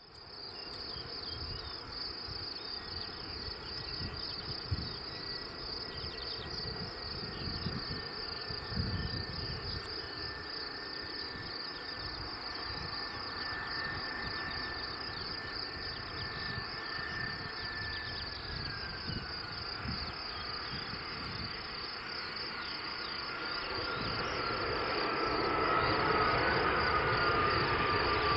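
Crickets chirping steadily over the distant whine of an Airbus A320's CFM56 jet engines. The engines' high tone falls in pitch about two-thirds of the way in. Engine noise then grows louder toward the end as the airliner rolls out on the runway after touchdown.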